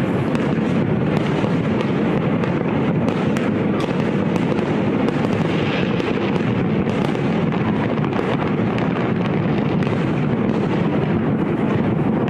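Fireworks display at full pace: many shells bursting in quick succession, their bangs and crackles running together into a dense, steady rumble with sharp cracks scattered through it.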